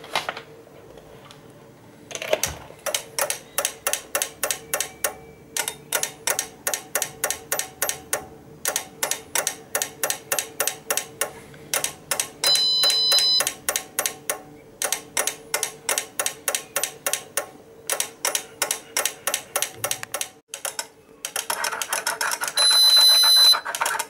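Summit 3208 alarm system ticking rapidly and evenly, about three sharp ticks a second with a few short pauses. A long high beep comes twice, about halfway through and near the end.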